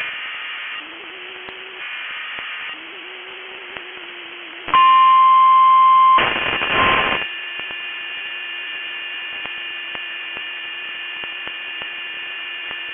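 Glitching NOAA Weather Radio stream between broadcasts: hiss and a faint buzzing hum. About five seconds in, a loud steady alert tone sounds and breaks off after a second and a half, followed by a burst of static. Then comes a steady hum with faint regular ticks.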